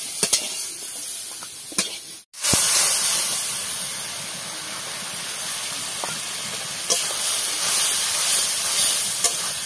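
Masala and crab pieces sizzling in hot oil in an iron karahi, a steady hiss, with a metal spatula knocking and scraping against the pan a few times. The sound breaks off for a moment a little over two seconds in.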